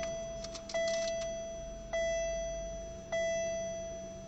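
A Pontiac Bonneville's electronic warning chime dinging about once every 1.2 seconds, each ding fading before the next, three times. Under it is the low idle of the car's 3.8 L V6, which runs roughly with a random misfire.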